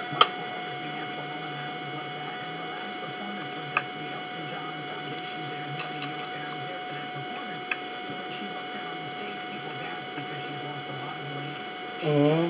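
Steady electrical hum and whine, several fixed tones held over a hiss. A few small clicks break in, and there is a short vocal sound near the end.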